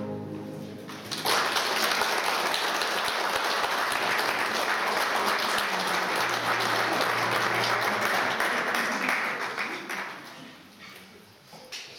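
Audience applauding at the end of a choir song: the choir's last chord dies away, then clapping starts suddenly about a second in, holds steady and fades out near the end.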